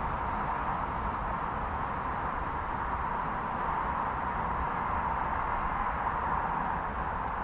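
Steady outdoor background noise: a constant even hiss with a low rumble underneath.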